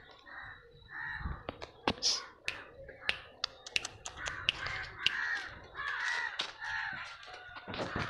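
Crows cawing over and over in short calls, thickest in the middle of the stretch, with sharp clicks scattered among them.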